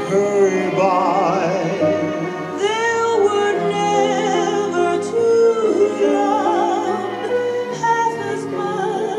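Music with a singer holding notes with a wavering vibrato over sustained accompaniment, played back from an old cassette tape on a 1972 Sharp RT 442H cassette deck through hi-fi loudspeakers in the room.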